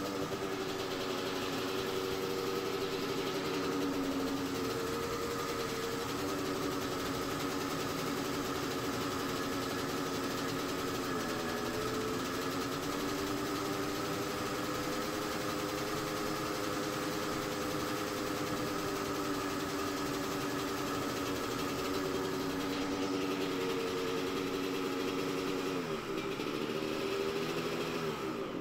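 Freshly rebuilt Suzuki RM250 two-stroke single-cylinder engine idling really high and steady, dipping briefly in pitch twice, around the middle and near the end, then cut off suddenly by the kill switch. The high idle comes from the throttle cable being pulled tight when the handlebars turn to the right.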